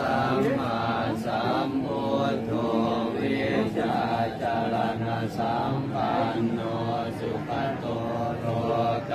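A group of Buddhist monks chanting together in unison, a Pali devotional recitation of the puja, with the voices running on without a break.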